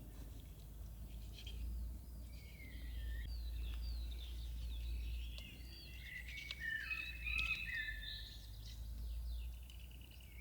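Small songbirds chirping and singing in quick, gliding phrases, busiest past the middle, over a low steady rumble, with a few light clicks.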